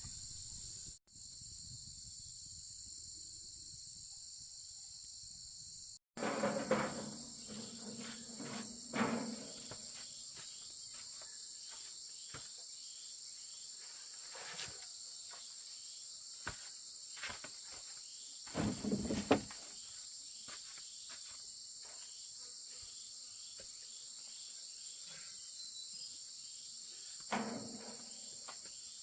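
A steady, high chirring insect chorus, with a few knocks and rustles, the loudest about a fifth of the way in and again about two-thirds through.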